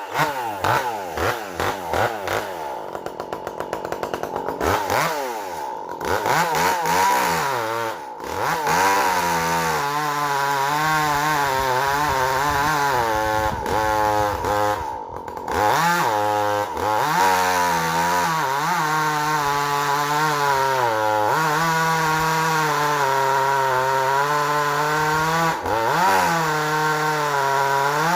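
Echo two-stroke chainsaw revved up and down several times, then held at full throttle cutting firewood. Its pitch sags briefly a few times as the chain bites into the wood and then recovers.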